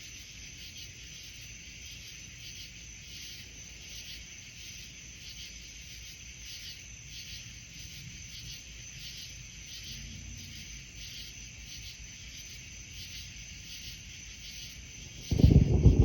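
Night insects, crickets, chirping in a steady, even pulse, then near the end a sudden loud crack of thunder that breaks into a crackling rumble.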